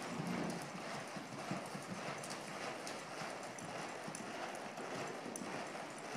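Hoofbeats of a Quarter Horse mare under saddle on the dirt footing of an indoor arena, going on steadily as she moves around the ring.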